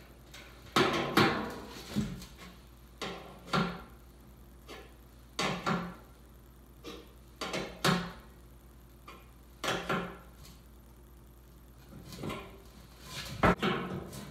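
A brand-new, empty fuel tank knocking and clunking as it is handled and fittings are fastened onto it: about a dozen separate knocks at irregular intervals, each with a short ring, the loudest about a second in and near the end.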